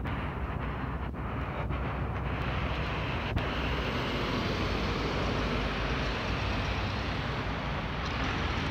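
Steady outdoor rumble of wind on a phone microphone mixed with distant road traffic, growing brighter and a little louder from about two and a half seconds in until near the end.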